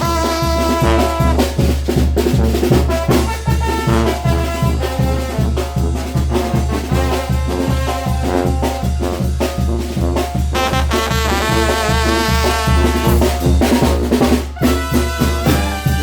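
Mexican banda brass band playing an instrumental: trumpets and trombones carry the melody over a pulsing tuba bass and drums on a steady beat. A brief break comes about three-quarters of the way through.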